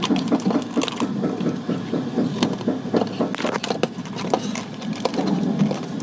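A small electric motor whirring steadily, with plastic gears clicking irregularly over it, as in a motorized toy mechanism.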